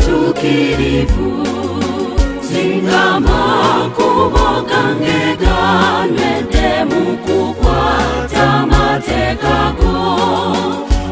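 Mixed church choir singing a gospel song in harmony, over a steady beat and a bass line.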